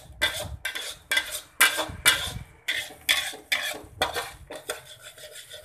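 Metal spoon scraping and stirring spice paste around a frying pan in quick, repeated strokes, about two a second, as the paste is sautéed until fragrant.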